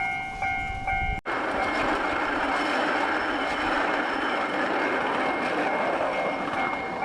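Level-crossing warning bell of a miniature park railway ringing about twice a second. About a second in it cuts off abruptly and a steady rushing rumble from a passing miniature ride-on train takes over, with the bell faintly back near the end.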